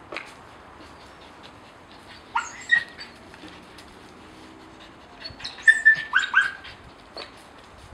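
Nova Scotia duck tolling retriever giving short, high-pitched yips while it leaps at a ball, two about two and a half seconds in, then a quick run of four or five near six seconds.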